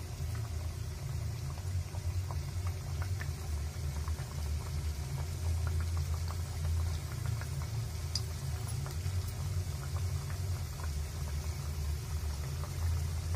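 Shankarpali dough pieces deep-frying in hot oil in a kadhai: a steady sizzle and bubbling crackle with small scattered pops, over a steady low rumble.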